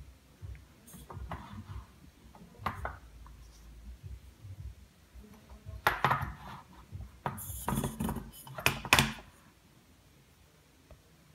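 Handling noises from a metal fidget spinner being turned over and fingered in the hand: scattered clicks and knocks, loudest between about six and nine seconds in.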